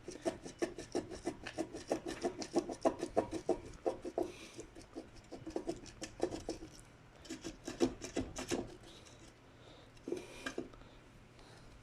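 Hand tools working on metal mud-pump parts: a quick run of short scraping, rubbing strokes, about four a second. It stops after about eight and a half seconds, with a couple more strokes near the end.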